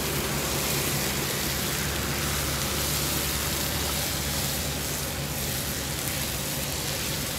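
Diced bacon and onions sizzling steadily in a hot cast iron skillet, a constant rain-like crackle, over a steady low engine hum.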